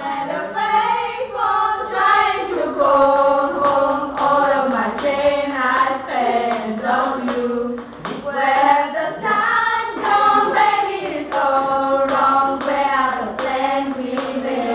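A group of girls singing together, several voices with long held notes.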